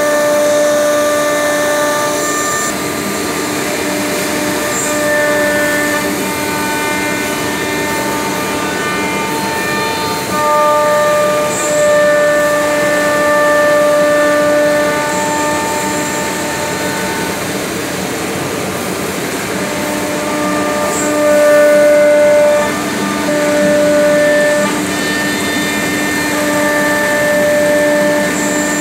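CNC router machining a cabinet board: a steady machine whine that shifts between a few pitches every few seconds, over an even rushing noise.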